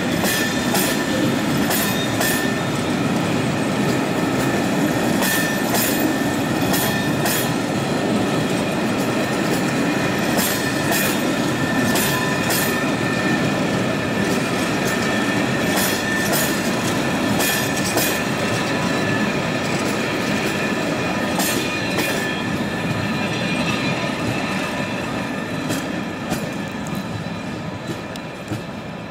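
Passenger train of České dráhy coaches rolling past: a steady rumble of wheels on rail with many sharp clacks as the wheels cross rail joints, and a faint high wheel squeal. The sound fades over the last few seconds as the end of the train moves away.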